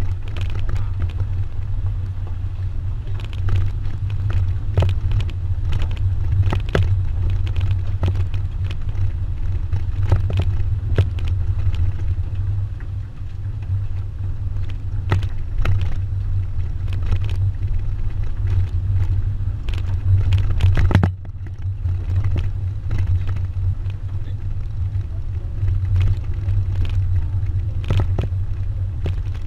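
Pickup truck driving along a road, heard from its open cargo bed: a steady low rumble of engine and tyres with scattered knocks as the truck goes over bumps. About two thirds of the way through the rumble dips suddenly for a moment, then carries on.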